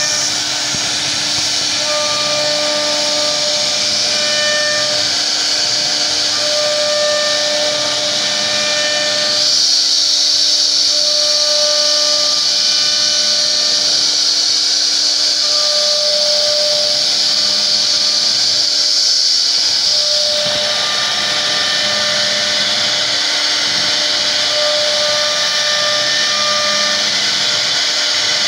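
CNC router spindle carving grooves into a wooden door panel: a steady high-pitched whine and hiss of the cutter in the wood, with short steady tones coming and going as the head moves. The hiss grows louder for about ten seconds midway through.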